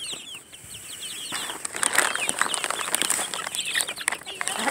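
Young Leghorn chickens peeping rapidly and excitedly. After about a second, a louder stretch of wing flapping and rustling from the flock sets in, with the peeping going on through it.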